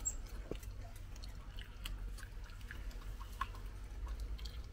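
Raccoon chewing a dog biscuit at close range: irregular small crunching clicks, over a low steady rumble.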